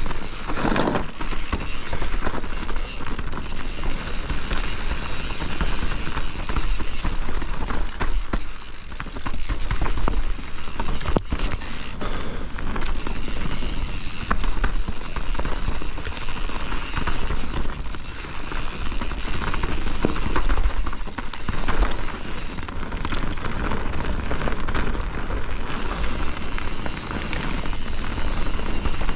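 Wind buffeting the microphone of a mountain bike riding a fast downhill trail, with knobby tyres rolling over dirt and rocks and the Privateer 161 enduro bike's chain and frame rattling over bumps.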